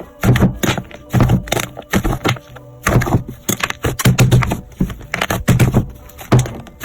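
Slime being squeezed and poked by hand, giving irregular sticky clicks, crackles and soft pops several times a second.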